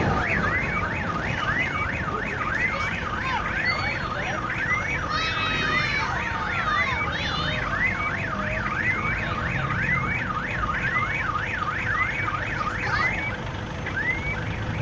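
Car alarm sounding: a rising electronic whoop repeated over and over, about two to three times a second, over a low rumbling background.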